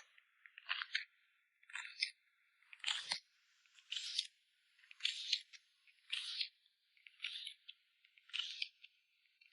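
Photocard packing materials being handled close to the microphone: a series of short rustling sounds, about one a second.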